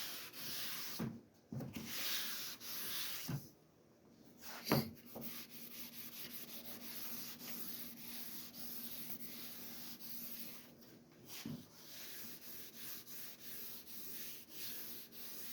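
Coarse Sandflex rubber abrasive block scrubbed back and forth by hand on a cast iron table saw top, rubbing out rust and stains. The strokes are louder for the first few seconds, then settle into quieter steady rubbing, with one knock about five seconds in.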